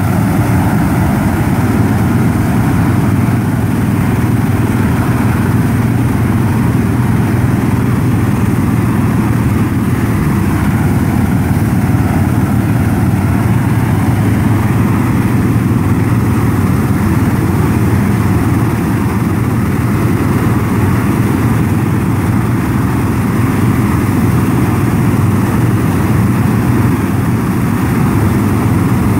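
A tractor's engine running steadily as it pulls a propane flame weeder, with a steady rush from the weeder's long row of burning propane burners.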